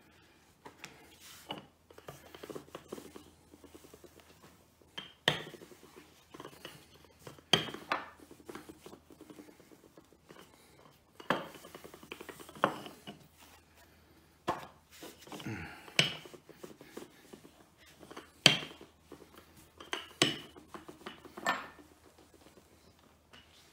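Wooden rolling pin rolling out pasta dough on a stone countertop: a low rolling rumble with a sharp wooden knock every second or two as the pin is pushed and pulled.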